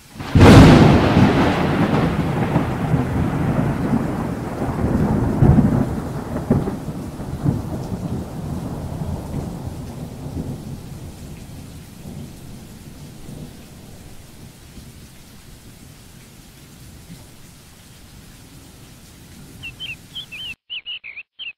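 Thunderclap with rain: a sudden loud crack that rolls into a long rumble and rain hiss, fading away slowly over about fifteen seconds. A few short high chirps near the end before the sound cuts off.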